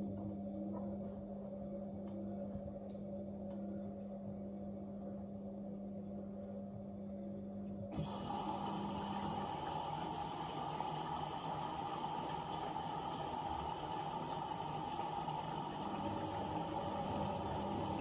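Bauknecht WAP9988 front-loading washing machine partway through a 60 °C colour wash, running with a steady hum. About eight seconds in, a louder rush of water starts suddenly and runs steadily until near the end.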